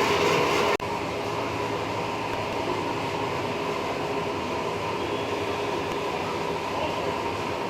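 Train running along the line, a steady rumble of the carriage on the track. Under a second in the sound breaks off abruptly and goes on steadier and a little quieter.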